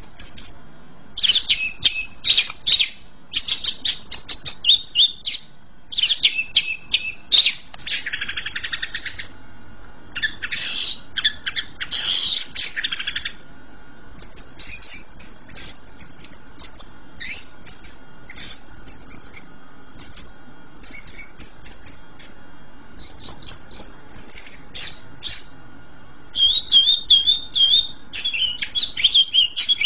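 Green leafbird (cucak ijo) singing hard in rapid phrases of high, quick notes broken by short pauses, with a couple of harsher, scratchy chatters in the middle and a run of repeated notes near the end.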